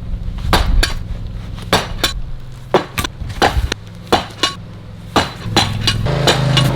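A 3.6 kg sledgehammer striking a brick letterbox again and again, with sharp, clinking impacts, over background music.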